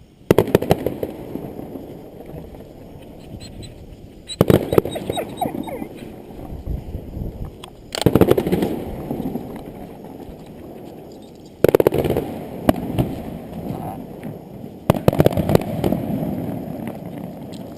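Fireworks display: five loud aerial shell bursts about every three to four seconds, each followed by crackling and a rumbling tail that fades away.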